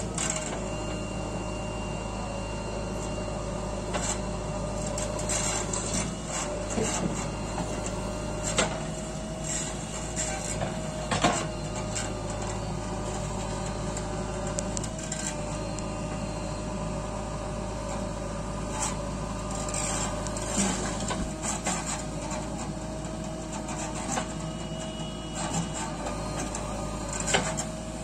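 A JCB 3DX backhoe loader's diesel engine runs steadily under load while the backhoe arm digs soil, with sharp clanks and scrapes from the bucket every few seconds.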